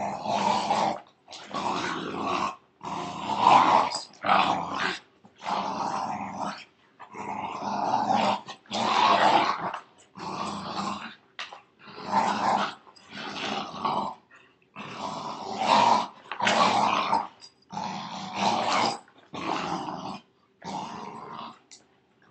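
Dogs play-growling in a tug-of-war over a bicycle tire: rough growls in repeated bursts of a second or so, with short breaks between.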